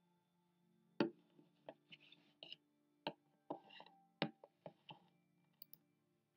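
Soft background music with a run of about eight sharp knocks and clicks close to the microphone over a few seconds, the first the loudest: handling noise from someone moving right beside the camera.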